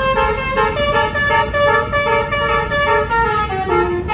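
Bus Basuri 'telolet' musical horn playing a tune: a run of short held notes that step up and down several times a second, loud and continuous, over low background rumble.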